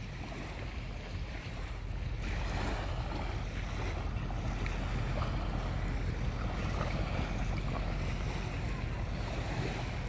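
Sea wind buffeting the microphone, a steady low rumble over the wash of small waves on the shore, growing a little louder about two seconds in.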